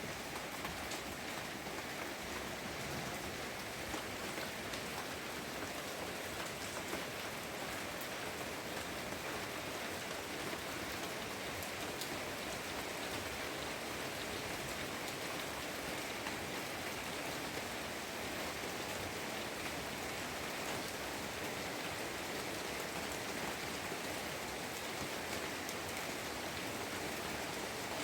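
Steady rain falling, a continuous even hiss with scattered drops pattering on surfaces.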